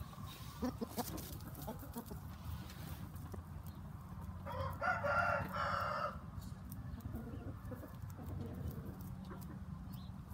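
A rooster crows once, about halfway through, for about a second and a half. A few faint short calls come before it, and a steady low hum runs underneath.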